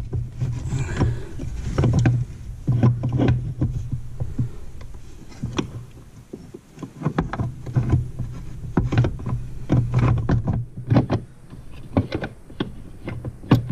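Irregular metal clicks, clinks and small knocks of chaincase parts (sprocket gear, chain and spacer) being handled and fitted by hand, over a low hum that comes and goes.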